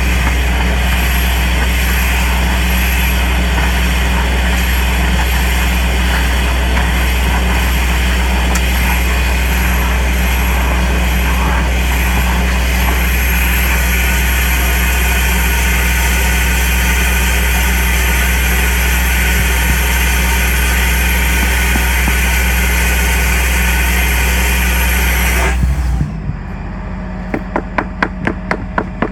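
A compact vacuum-excavation (soil-sucking) machine runs steadily at full suction with a loud low hum. It cuts off abruptly near the end, and a quick run of regular knocks follows.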